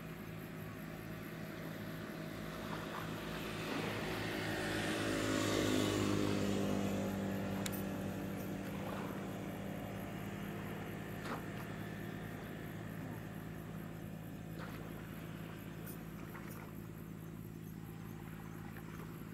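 A small tugboat's diesel engine running steadily as the boat passes close by, with the rush of its bow wave. The drone swells to its loudest about six seconds in, dropping a little in pitch as the boat goes by, then slowly fades as it moves away.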